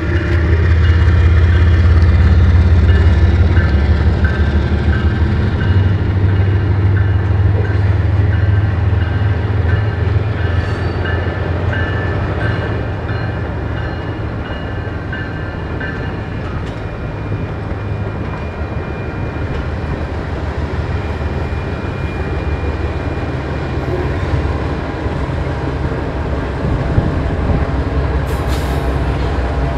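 A GE ES44AC diesel-electric locomotive working hard at high throttle to move its train, with a deep, loud engine rumble. The rumble is heaviest for the first half and eases somewhat after that.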